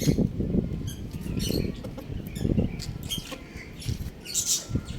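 Chickens moving about: rustling and scuffling, with short, high cheeps scattered irregularly throughout.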